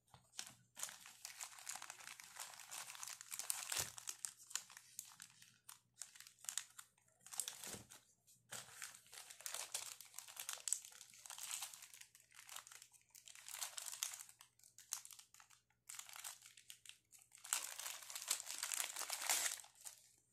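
Thin plastic packaging bags crinkling in irregular bursts as they are handled and opened, with two soft knocks in the first half.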